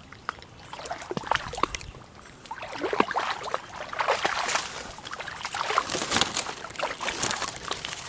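Tall dry grass and reed stalks rustling and crackling as a person pushes through them on foot, in irregular bursts that grow louder partway through.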